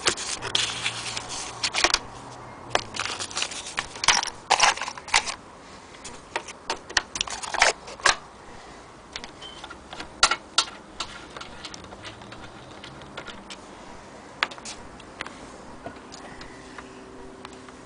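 Hands handling the wooden case of an antique sewing machine and the paper padding under it: paper rustling near the start, then scattered light knocks and taps on the wood, busiest in the first half and thinning out later.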